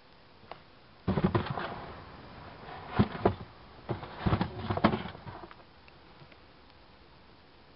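Box and packaging being handled, rustling and scraping with several sharp knocks, from about a second in until about five and a half seconds in.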